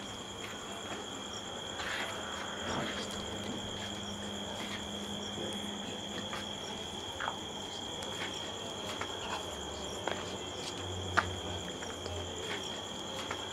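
Night crickets trilling steadily in one unbroken high-pitched tone. Occasional soft clicks sound over it, the sharpest about eleven seconds in.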